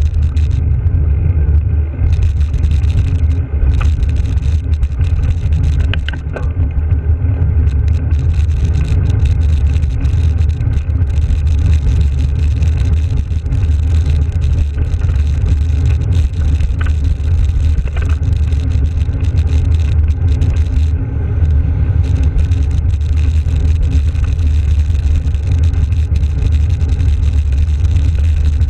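Wind buffeting the microphone of a GoPro on a moving bicycle: a steady, loud low rumble, with tyre-on-road noise and a few small knocks from bumps in the surface.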